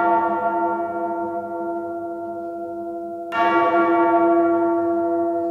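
A large bell tolling twice, about three and a half seconds apart. Each stroke rings with several tones at once and slowly fades, as the opening of a heavy metal backing track.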